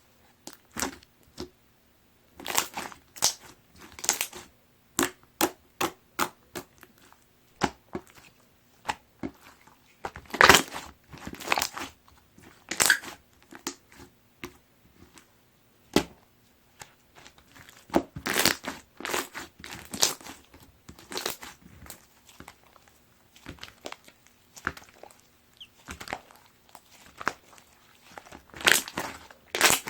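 Watery, jiggly slime being squeezed, pressed and poked by hand: irregular wet clicks, pops and squishes, some in quick clusters and some single.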